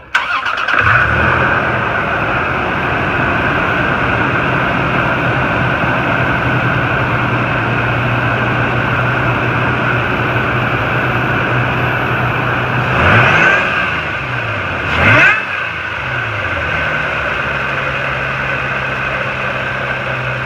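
A 2013 Toyota Tacoma's TRD-supercharged 4.0 L 1GR V6, freshly fitted with a smaller 2.825-inch URD supercharger pulley, starts and settles into a steady idle. About two-thirds of the way in it is revved twice, about two seconds apart, the revs rising and falling each time before it returns to idle.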